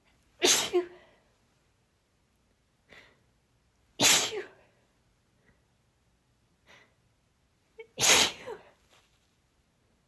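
A woman sneezing three times, about four seconds apart, in breathy sneezes.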